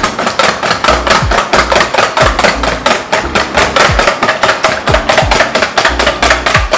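Eggs and sweetened condensed milk being beaten by hand in a bowl, the utensil knocking against the bowl in a fast, even rhythm of about five to six strokes a second. The mixture is being beaten until it turns frothy.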